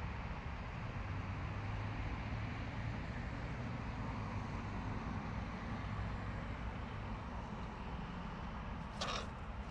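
Steady rumble of distant road traffic, with one brief harsh sound near the end.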